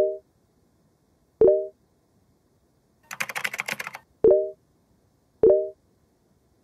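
Chat-app message notification tones: four short, identical pops, one to three seconds apart. Between the second and third comes about a second of rapid computer-keyboard typing.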